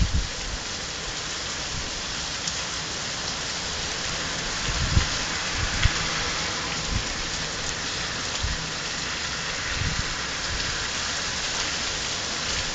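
Heavy rain pouring down in a steady dense hiss, with a few brief low thumps along the way.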